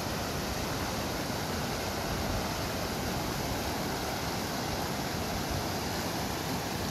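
Small mountain river rushing over boulders and through shallow rapids: a steady, even sound of running water.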